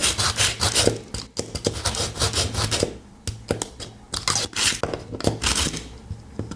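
Pocket knife blade pulled over and over through the ceramic-disc slot of a small handheld carbide-and-ceramic knife sharpener: a rapid series of short gritty scraping strokes, with a brief lull about halfway.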